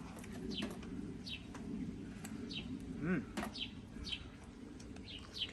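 A small songbird chirping outdoors: short, high, falling notes repeated every second or so. One low note rises and falls about three seconds in.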